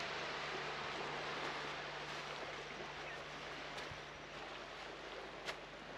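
Small waves washing on a sandy beach: a steady wash that eases off slightly, with one short click near the end.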